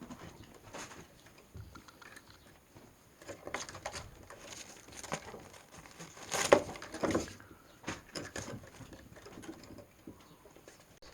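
Kittens scampering and scuffling during rough play, with irregular pattering of paws, scratching and light knocks; the loudest burst of scuffling comes about six and a half seconds in.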